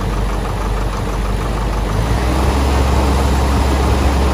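Tractor diesel engine running steadily, growing heavier and louder about two seconds in.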